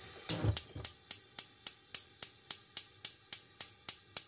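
Gas stove's electric spark igniter clicking in a fast, even train, about three or four clicks a second, after a few heavier knocks near the start. It is the burner being lit under the pan.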